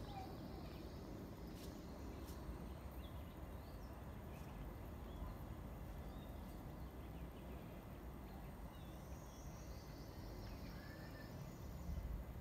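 Faint, steady low outdoor rumble with a few high bird chirps near the start and again near the end.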